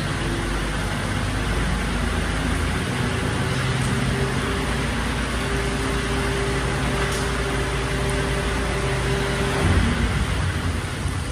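Mercedes-Benz Arocs garbage truck's diesel engine running steadily, its hum shifting to a higher steady note about three seconds in and falling away with a louder thump near the end, over the hiss of rain.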